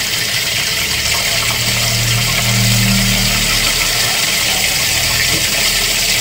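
Pot of clear mustard-green and tempe soup at a rolling boil over a gas burner: a steady bubbling hiss. A low hum swells for about two seconds in the middle.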